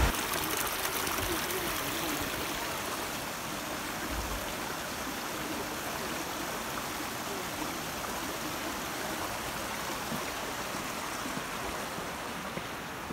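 Stream water running steadily, an even rushing without pauses.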